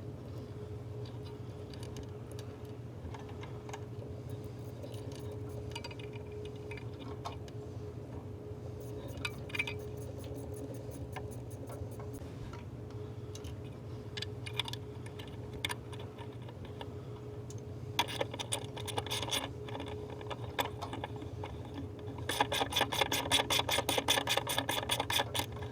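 Scattered clicks and clinks of tools and parts being handled, then runs of rapid ratchet clicking from a socket wrench on the 9 mm bolt of a new radio suppression capacitor, loudest and densest near the end. A steady low hum sits under it all.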